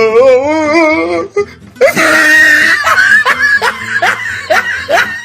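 Laughter over music: a wavering laugh at first, a loud cry about two seconds in, then a run of short rising laugh-like yelps.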